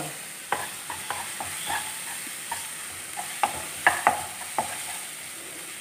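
A wooden spoon stirring and scraping chopped onions with ginger-garlic paste in a nonstick frying pan, over a faint sizzle of frying in oil, with scattered clicks of the spoon against the pan. The onions are being sautéed until the ginger-garlic paste loses its raw smell.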